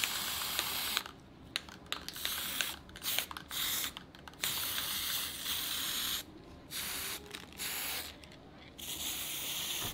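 Aerosol spray-paint can spraying onto a tray of water in about six hissing bursts, the longest nearly two seconds, with short sharp clicks in the gaps between.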